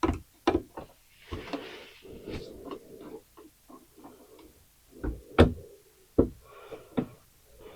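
Irregular clicks and knocks of a wall light switch and its faceplate being handled and pressed into place, with rustling between them and a sharper knock about five seconds in.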